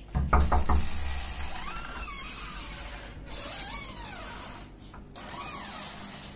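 A hostel room door rattling and thudding a few times in quick succession as it is pushed open, followed by a steady hiss with a few faint rising and falling tones.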